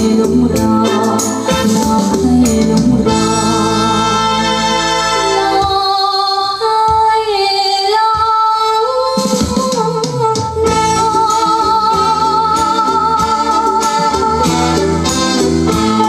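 Music played back through a pair of home-built two-way loudspeakers as a sound test: a melody over rhythmic percussion and bass. The bass drops out for a few seconds in the middle and then returns.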